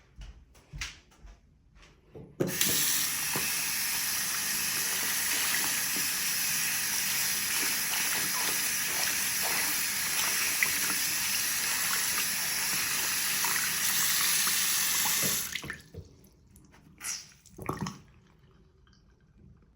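Running water, a steady even noise that starts abruptly a couple of seconds in and stops about thirteen seconds later. Small clicks and knocks come just before it starts and just after it stops.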